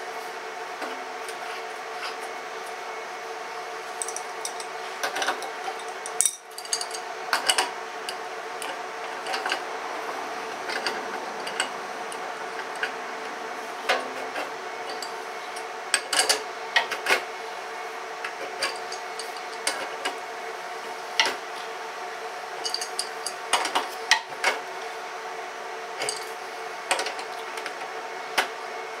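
Adjustable spanner clinking and ticking against brass air fittings as they are screwed tight into an air compressor's outlet panel, in scattered metallic clicks. A steady hum runs underneath.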